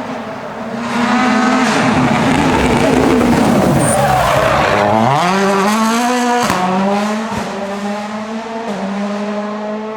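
Rally car passing close at speed. The engine note drops as it slows for a bend, then rises as it accelerates away, shifts gear about six and a half seconds in, and fades.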